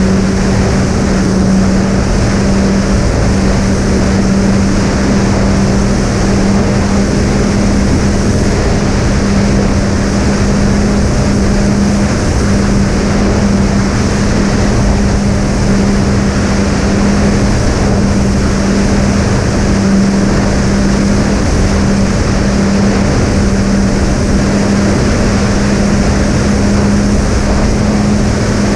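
Twin SunnySky 2212 980 kV brushless motors with 7x4x3 propellers running at a steady cruise setting on a fixed-wing model plane in flight, heard as a steady hum under heavy rushing airflow noise.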